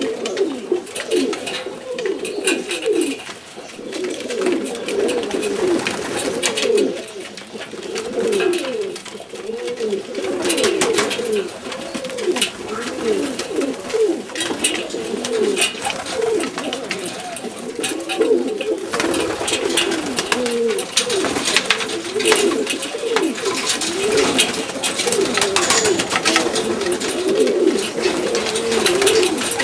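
A flock of Macedonian Donek pigeons cooing together, many overlapping coos without a break, with scattered clicks among them.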